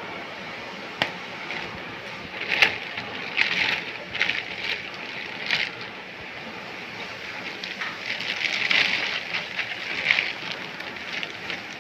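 Thin plastic bag crinkling and rustling in irregular bursts as it is handled and pulled off a boxed item, with a sharp tap about a second in.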